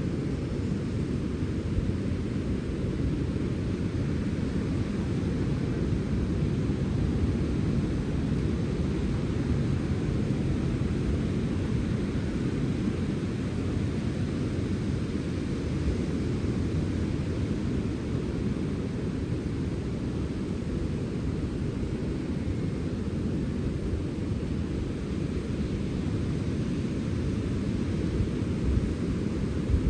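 Sea wind blowing steadily, a low, even rushing with no gusts or breaks.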